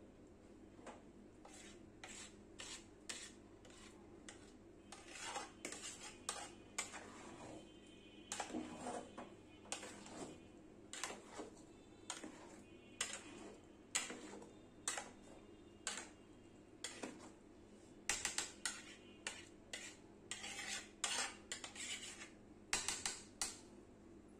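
Long-handled metal spatula stirring rice in a large aluminium pot, scraping and clinking against the pot's sides and bottom in irregular strokes that come thicker near the end.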